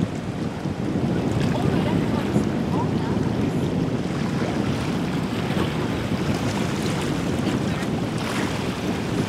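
Wind buffeting the microphone over the steady wash of water and the low rumble of a flybridge motor yacht under way.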